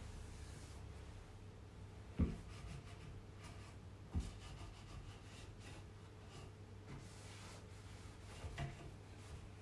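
Cloth rubbing over a solid-wood table leg, working beeswax cream into the wood, with three short knocks against the wood.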